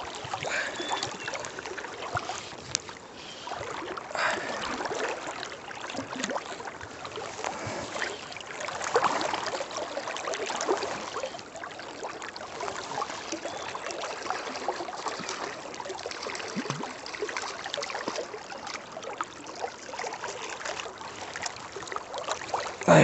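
River water flowing close at hand, with irregular small splashes and sloshes.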